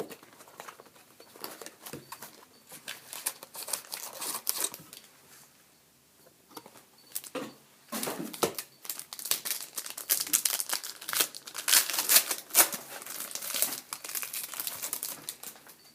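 Trading-card pack wrappers crinkling and tearing as card packs are opened by hand, with scattered crackles, a brief lull around six seconds in, and busier crinkling from about eight seconds on.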